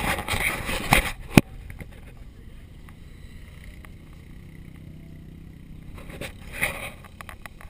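Rustling, scraping noise on the camera microphone with a sharp click about a second and a half in, then a faint steady engine hum, like an off-road vehicle idling, with another brief rustle near the end.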